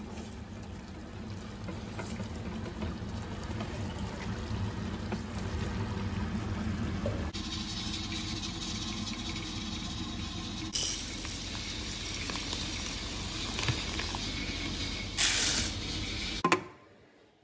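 Chicken stew simmering and bubbling in a pot, a steady rush with a low rumble that shifts in character at edits about 7 and 11 seconds in. Near the end a brief louder rush of dry red lentils poured into a plastic bowl, then the sound cuts off.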